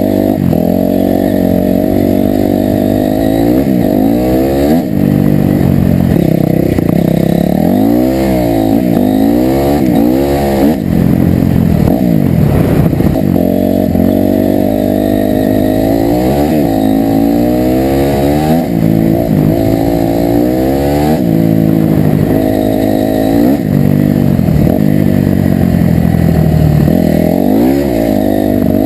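Dirt bike engine being ridden hard, heard from the rider's seat: the revs rise and fall again and again as the throttle is opened and closed along a bumpy track.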